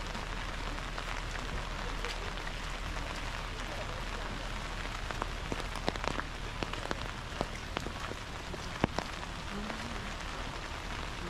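Heavy rain falling: a steady hiss with scattered sharp drop ticks, most frequent in the middle of the stretch.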